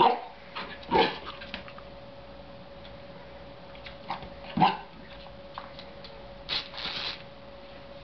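Belgian Shepherd Groenendael puppy barking: three short, sharp barks, the first two about a second apart and the third a few seconds later.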